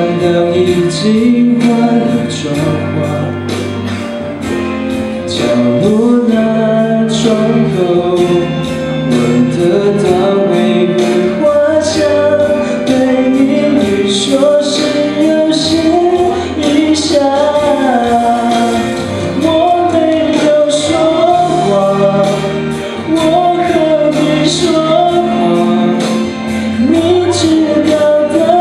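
Young man singing a Mandarin pop ballad into a microphone over a recorded backing track with a steady beat.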